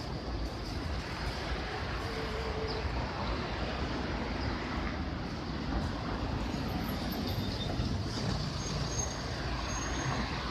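Steady city traffic noise: vehicles running along a street in a continuous low rumble, with no single event standing out.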